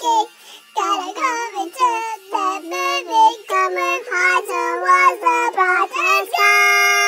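High-pitched singing of a pop-song melody in quick, broken phrases, after a brief pause just at the start. About six seconds in it settles into one long held note.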